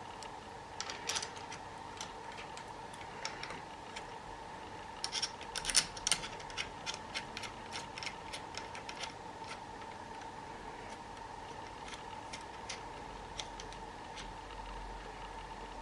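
Irregular light mechanical clicks and ticks, bunched together about five to six seconds in and sparser after that, over a faint steady hum.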